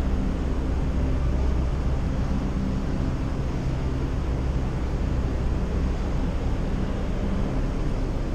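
Steady low rumble and hiss of background noise inside a large aircraft hangar, with a faint low hum and no distinct events.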